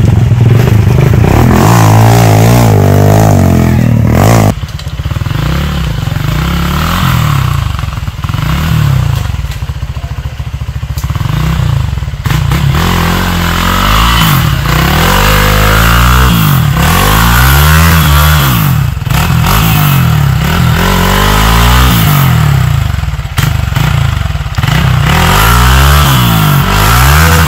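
Off-road motorcycle engine revving loudly, its pitch rising and falling again and again as the throttle is worked.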